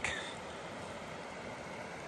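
Steady hiss of flowing river water.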